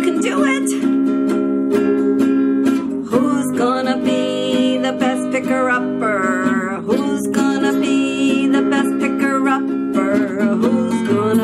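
Guitar strummed steadily, with a woman's voice singing or humming a melody over it in places.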